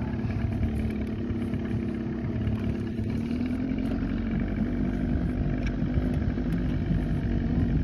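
Motorboat engine running steadily at a low, even pitch.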